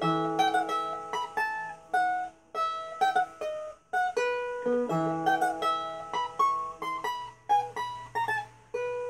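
Acoustic guitar played solo: a melody plucked note by note, each note ringing and fading, with a brief pause about four seconds in.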